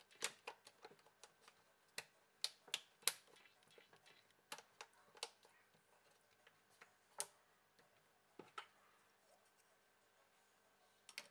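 Irregular sharp plastic clicks and taps, most of them in the first few seconds, as the plastic midframe of a Huawei Y5 II phone is pressed down around its edges and snapped into place.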